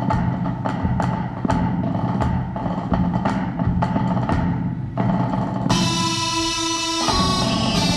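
Pipe band drum corps playing in strict time: sharp stick strokes on practice pads and snare drum, about two a second, over a low, steady drum sound. A bit over five seconds in, sustained pitched melody notes come in over the drumming.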